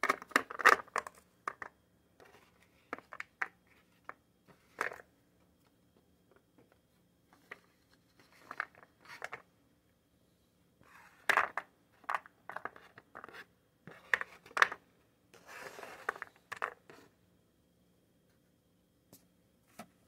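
Chopped baby carrot pieces being pushed off a piece of cardboard and dropping into a plastic dish: several bursts of light taps and cardboard scraping with short pauses between them.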